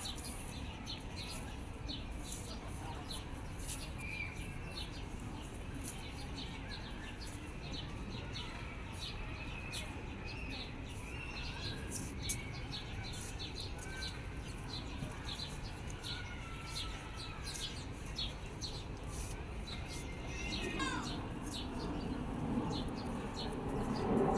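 Small birds chirping and twittering rapidly and continuously over a steady low background rumble. Near the end there is one falling call, followed by voices.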